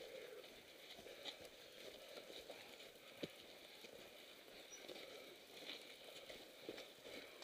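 Faint footsteps in snow as mountain bikes are pushed uphill on foot, with small clicks from the bikes and one sharper click about three seconds in.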